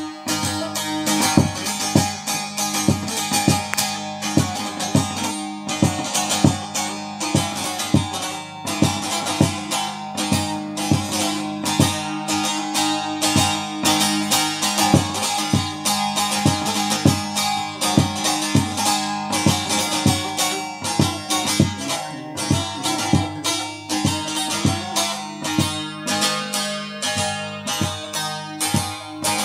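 Bağlama (long-necked Turkish saz) played solo with a plectrum: a quick, continuous run of plucked notes ringing over steady drone tones, an instrumental break between sung verses of a folk song.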